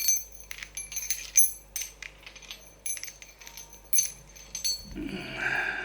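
Sharp metallic clicks and clinks from an Abloy Sentry 342 padlock being taken apart, its cap being worked off. A brief rougher, rubbing noise comes near the end.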